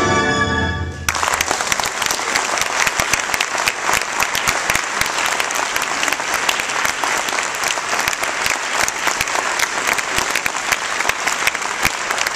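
A brass band's final held chord stops about a second in, and a concert hall audience breaks into steady applause.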